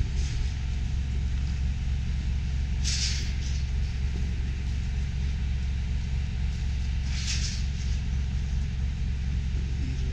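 Diesel engine of farm machinery idling steadily, a constant low rumble. Two short hisses break over it, about three seconds in and again about seven seconds in.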